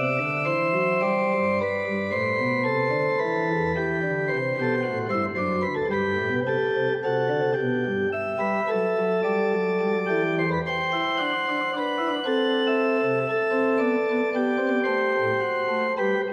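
Henk Klop chest organ, a small pipe organ, playing baroque music: several steady held pipe notes sound together over a bass line that steps up and down.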